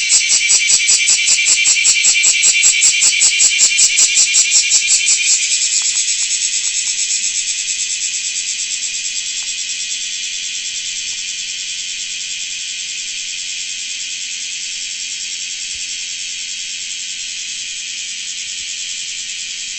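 Large brown cicada (Graptopsaltria nigrofuscata) calling: a rapid pulsing buzz that, about five seconds in, turns into a continuous sizzling drone, slowly fading.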